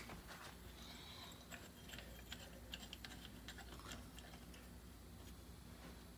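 Faint, scattered light clicks and taps of metal parts being handled at a brake caliper, as an old brake pad and a tool are set against the caliper piston. A sharper click comes right at the start, and the taps thin out toward the end.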